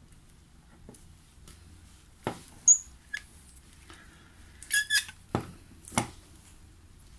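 Small hand instruments clicking and tapping on hard surfaces while a bruxism splint is waxed up: about five sharp ticks, the loudest with a short high ring, and a brief squeak in the middle.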